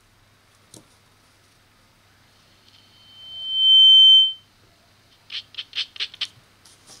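Acoustic feedback (Larsen effect) from a small active amplifier's microphone and speaker as the volume is turned up: a high whistling tone swells over about a second, holds loud, then cuts off suddenly. About a second later comes a quick run of six sharp taps.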